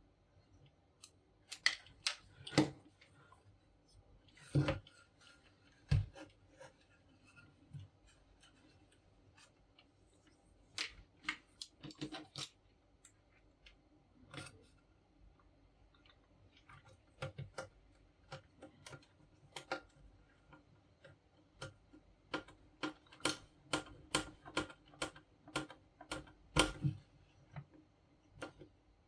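Irregular clicks and light knocks of small plastic and metal laminator parts being handled during hand work. Near the end comes a quicker run of clicks, about two to three a second.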